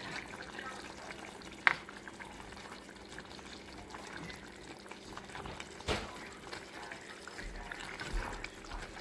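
Saucepan of milkfish paksiw simmering with a soft bubbling hiss. A spatula knocks sharply against the pan about two seconds in and again, more softly, about six seconds in.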